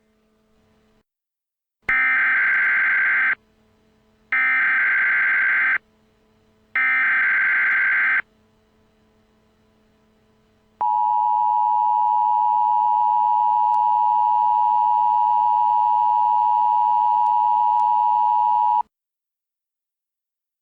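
Emergency Alert System header: three bursts of warbling digital data tones (the SAME header), each about a second and a half, then after a short pause the two-tone EAS attention signal held steadily for about eight seconds before cutting off sharply. It marks the start of a broadcast emergency alert.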